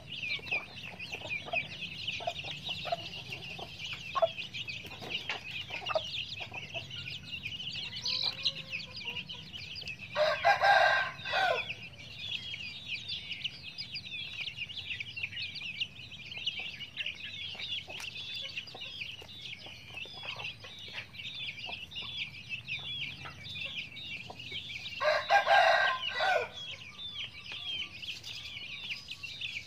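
Many young chicks peeping continuously, while a rooster crows twice: once about ten seconds in and again near the end, each crow about a second and a half long and louder than the peeping.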